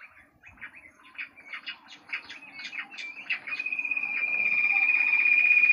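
Jungle bush quail calling: a run of short chirping notes, then, from about three and a half seconds in, a rapid trill held at one pitch that grows steadily louder.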